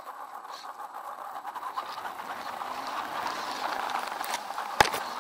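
WLtoys 10428 RC truck's electric drive motor and gearbox whirring steadily as it drives over a dirt trail, growing a little louder. A sharp knock near the end as the truck bumps into the brush.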